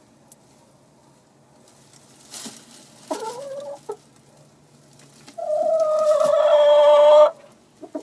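Domestic hen calling from the nest boxes: a short call rising in pitch, then a long drawn-out call held on one pitch for about two seconds that cuts off sharply.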